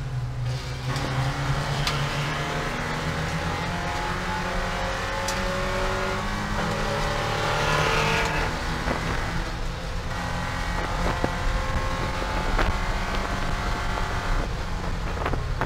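Porsche 944 Spec race car's 2.5-litre four-cylinder engine heard from inside the cockpit, pulling hard with its pitch rising over the first half, then easing back about eight seconds in and running on steadily.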